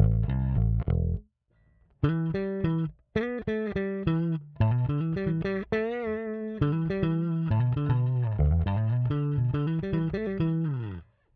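Triple D Pony 30-inch short-scale electric bass played, a run of plucked notes. The playing pauses briefly a little over a second in, then resumes as a busy line with a wavering held note near the middle, and stops just before the end.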